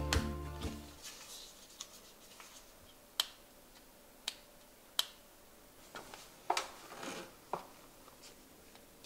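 Background music fading out in the first second, then a few sharp, separate plastic clicks and soft handling sounds from a battery-powered LED sensor light bar being handled.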